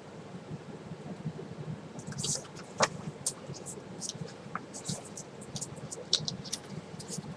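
Paper pages being handled and turned: a run of short, crisp rustles and ticks starting about two seconds in, over a steady low hum.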